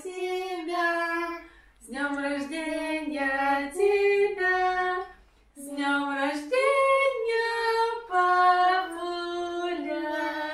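Women and children singing a birthday song to him together, unaccompanied, in phrases of held notes with short breaks about two and five and a half seconds in.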